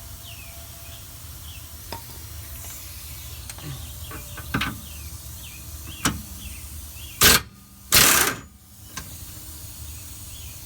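A few metal clicks and knocks, then an impact wrench fired in two short bursts about seven and eight seconds in, spinning loose the lower rear shock bolt on a Honda Odyssey.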